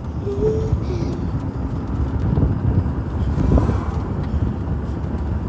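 A car driving, with a steady low rumble of road and engine noise and some wind buffeting the microphone. A few brief faint voice sounds come near the start.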